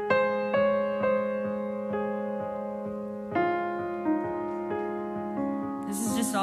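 Nord Stage 3 stage keyboard on a piano sound: a low A-flat is held throughout while single notes are struck above it one after another, each left to ring. The line wanders over the one note without settling on a chord.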